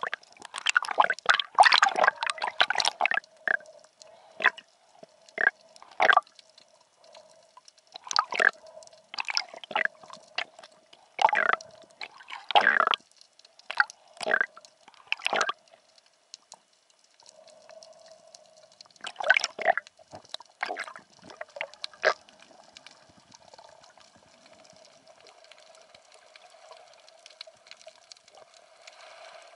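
Sea water gurgling and splashing in irregular bursts, dense for the first few seconds and then spaced out, over a faint steady hum.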